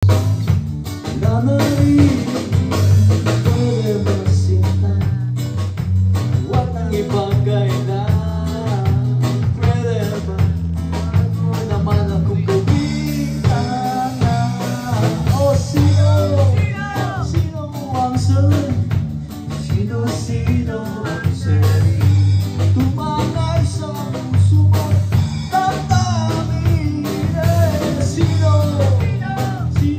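Small live band playing a song: a man singing while strumming an acoustic guitar, backed by an electric bass and a drum kit. The bass line is prominent throughout.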